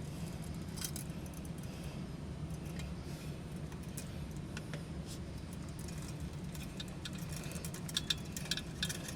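Light metallic clicks and rattles of small parts being handled during water heater repair, with a cluster of louder clinks near the end, over a steady low hum.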